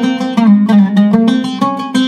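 Zeryab Nahhat-style oud with a Canadian cedar top and old walnut back, played solo with a pick: a quick melodic run of plucked notes, several a second.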